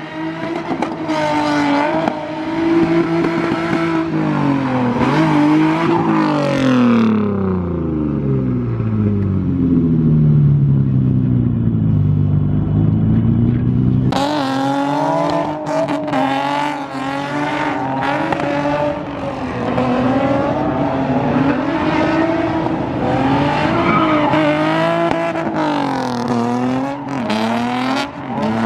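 Drift cars (a Nissan sedan and a Nissan 350Z) revving hard and bouncing off the limiter-like highs and lows as they slide, with tyre noise hissing and screeching under the engines. For several seconds in the middle an engine revs slowly down and back up with no tyre noise, then hard revving and tyre screech resume.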